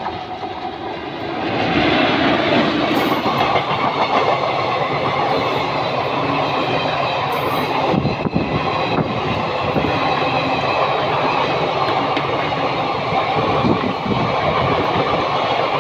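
Express train passing at speed, its ICF coaches running past with a loud rush and the clatter of wheels over the rails. The noise swells about a second and a half in, then holds steady.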